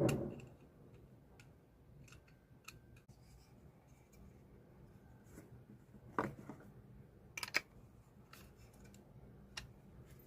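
Scattered clicks and taps of small parts being handled, with a sharp knock at the start and louder clicks about six and seven and a half seconds in.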